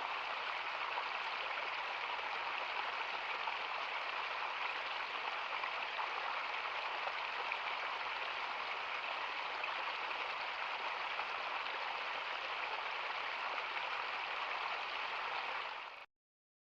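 Steady, even rushing of water, with no pauses or separate events, cutting off abruptly about sixteen seconds in.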